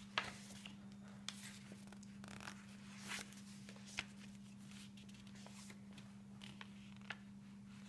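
Faint rustles and soft ticks of a handmade junk journal's paper pages being turned and handled, over a steady low hum.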